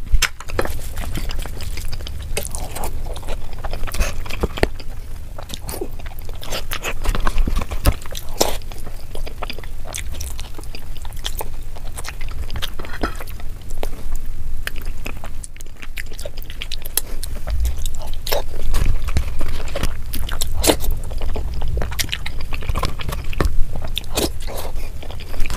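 Close-miked eating sounds of rice and chicken curry eaten by hand: chewing, biting and wet mouth noises in many quick, sharp clicks, sped up to double speed.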